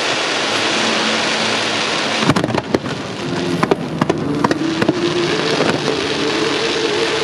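Fireworks crackling densely, a continuous hiss like heavy rain, with sharp bangs about two seconds in and several more through the middle.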